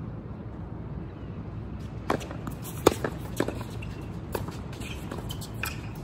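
Tennis rally: a tennis ball struck by rackets and bouncing on a hard court, a string of sharp pops starting about two seconds in, the loudest about three seconds in, over a steady low background hum.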